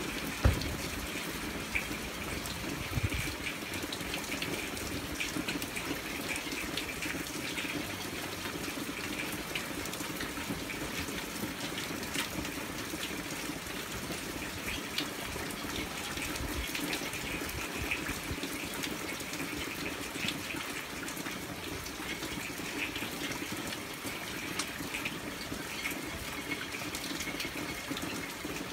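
Hard rain falling steadily, with many close drops ticking, and a few thumps in the first three seconds.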